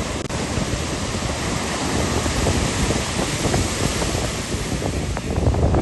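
Wind buffeting the microphone: a loud gusting rumble over a steady hiss.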